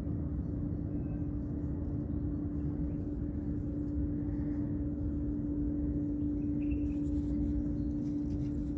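Steady low rumble with a constant droning hum, the sound of a motor or engine running at an even speed.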